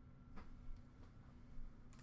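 A few faint, short clicks and taps from a hard plastic card holder being handled, over a low steady room hum.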